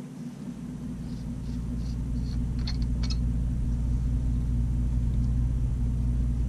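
A low, steady motor rumble with a hum builds over the first second or two and then holds. A few light clicks come about one to three seconds in as the motorcycle fork cap is unscrewed from the fork tube.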